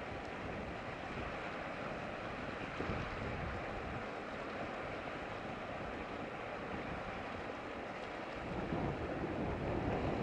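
Seaside wind and sea wash, a steady hiss of water. Wind buffets the microphone with a low rumble that grows stronger from about eight seconds in.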